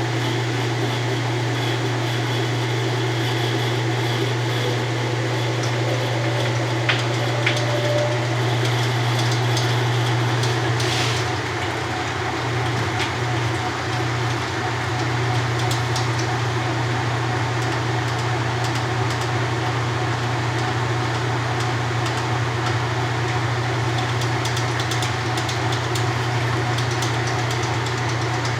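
1993 Kenmore 80 Series top-load washer running empty on a dry test: a steady motor and transmission hum, with a faint rising whine a few seconds in and a couple of light clicks.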